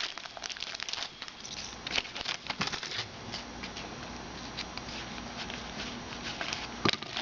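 Trading-card pack wrappers crinkling and tearing open while cards are handled. A dense run of sharp crackles in the first few seconds, then softer rustling, with another sharp click near the end.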